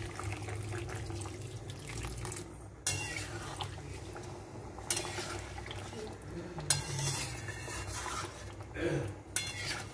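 Hot water poured into a chicken and potato curry in a metal kadai, then a flat metal spatula stirring the curry, scraping and knocking against the pan a few times.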